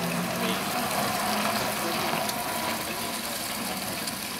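London Transport six-wheel trolleybus moving off slowly under its overhead wires: a steady rushing noise with a faint, even electric hum.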